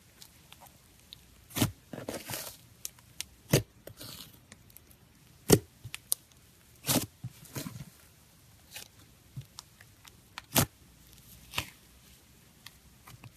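Thick, stretchy taffy slime being worked by hand, making irregular sharp pops every second or two with soft crackling between them.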